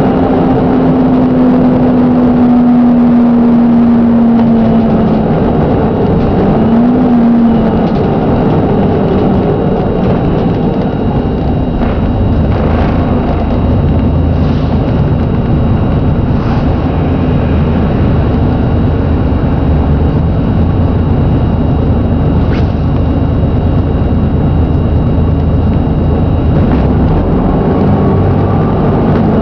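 Plaxton President double-decker bus's diesel engine running under way, heard from on board, with the bad engine knock it is known for. A gearbox whine falls over the first five seconds as the bus slows, wobbles briefly about seven seconds in, and starts rising again near the end as the bus pulls away.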